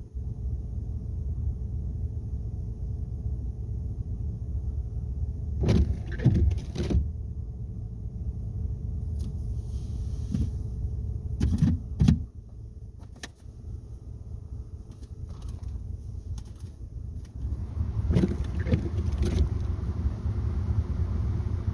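Car engine idling, heard from inside the cabin as a steady low rumble. Short clusters of knocks and rattles come about six, twelve and eighteen seconds in.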